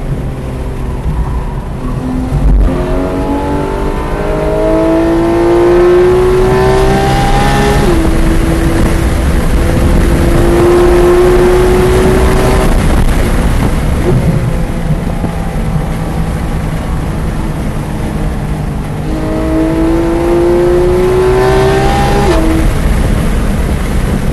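Porsche 911 GT3 RS (991.2) 4.0-litre naturally aspirated flat-six at full throttle, heard from inside the cabin. The revs climb steeply, drop in a quick PDK upshift about eight seconds in, climb again, ease off under braking, then rise once more to another upshift near the end. There is a single sharp knock about two seconds in.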